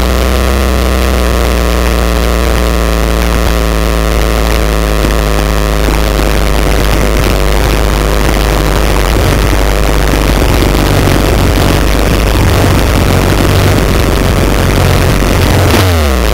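Pitbike's single-cylinder engine idling steadily, picked up close by an onboard camera, with a quick rev or two right at the end.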